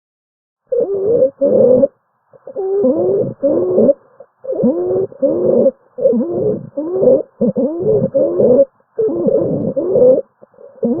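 Stridor: loud, pitched breathing noises with wavering tones that slide in pitch, coming in quick pairs about every one and a half to two seconds, starting just under a second in. Stridor is the sign of a narrowed upper airway.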